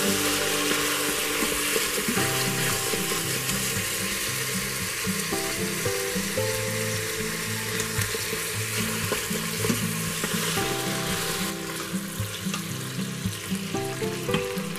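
Chicken pieces sizzling as they brown in hot olive oil in an Instant Pot's stainless steel inner pot on the sauté setting. Background music with held notes plays underneath.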